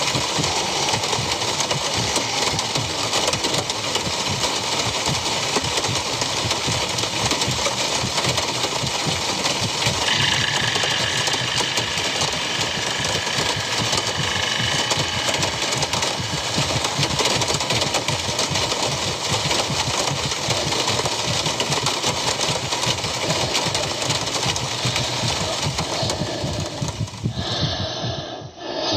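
Steady, harsh rattling noise from a horror short film's soundtrack. A faint high tone joins about ten seconds in, and the noise cuts off about a second before the end.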